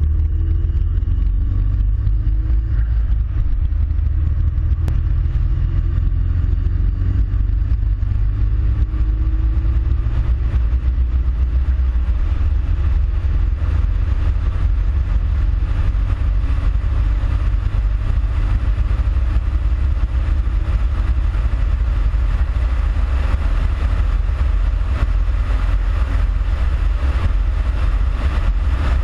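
Subaru WRX's flat-four engine and road noise while driving, a heavy steady low rumble. The engine note rises and falls a few times in the first dozen seconds, and the tyre hiss grows louder near the end.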